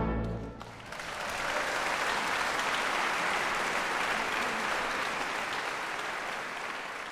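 The orchestra's final chord dies away in the first half-second, then a concert-hall audience applauds steadily, the applause slowly fading near the end.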